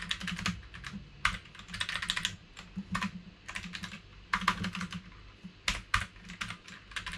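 Typing on a computer keyboard: quick runs of keystrokes in short bursts with brief pauses between them, as lines of code are typed.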